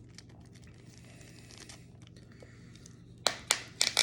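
Plastic takeout packaging being handled, with faint rustling at first. About three seconds in, a run of loud, sharp crinkles and crackles begins.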